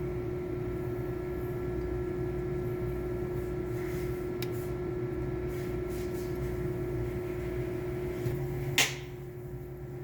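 Handling noise as the old chuck is backed off a Ridgid cordless drill: a couple of faint clicks, then one sharp metallic clack about nine seconds in. A steady background hum runs underneath throughout.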